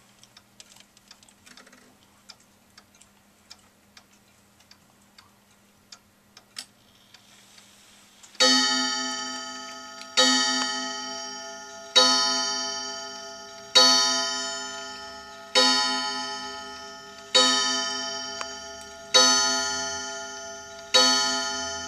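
Waltham pendulum clock ticking with light clicks from its movement as its hands are turned. About eight seconds in it begins striking eleven o'clock on its gong: loud ringing strikes about every two seconds, each dying away before the next, eight of them here.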